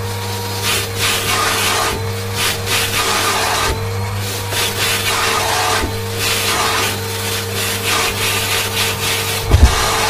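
Siemens Synchropower vacuum cleaner running with the bare hose end sucking at a fluffy fur pompom on a tiled floor; the airflow hiss swells and drops about once a second as the fur chokes and frees the opening. A short low thump comes near the end.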